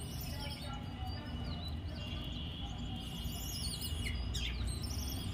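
Small birds chirping in short calls, most of them in the second half, over a steady low outdoor rumble.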